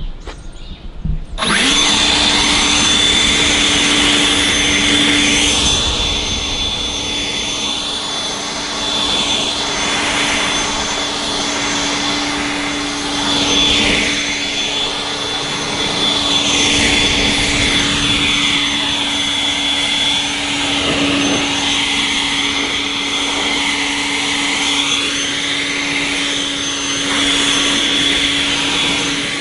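Handheld leaf blower switched on about a second and a half in and running steadily with a hum and a high whine, its sound shifting back and forth as the air stream sweeps over the car, blowing rinse water off the paint and glass to dry it.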